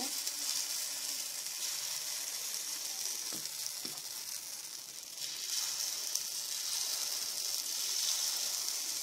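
Jowar and rice paddu batter sizzling in the hot, oiled cups of a paddu pan as it is ladled in: a steady high hiss. There are a couple of faint taps a few seconds in.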